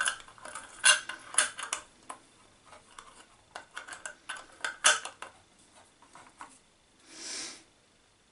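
Lid being screwed onto a filled glass jar: a run of clicks and scrapes of the lid working along the jar's threads, with a short soft rush of noise about seven seconds in.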